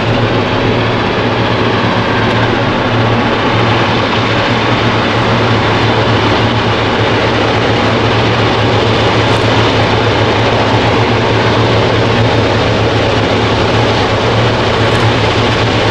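Multiple Clyde/EMD diesel-electric locomotives heading a grain train, their engines running under load with a steady low drone that grows a little louder as the train approaches.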